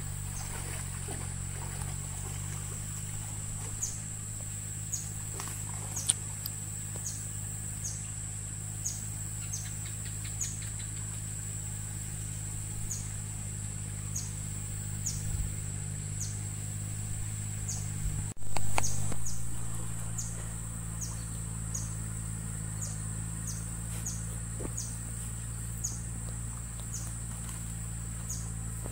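Outdoor insect and bird ambience: a steady high-pitched insect drone with a short descending chirp repeating about once a second, over a steady low hum. About two thirds through, a sudden loud noise fades away over a second.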